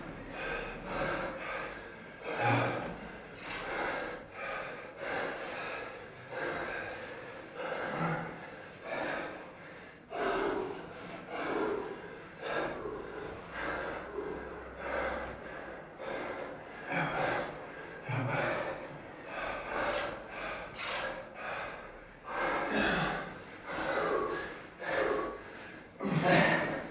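Hard, rhythmic breathing of two men under strain as one climbs around the other's body, a breath about every second.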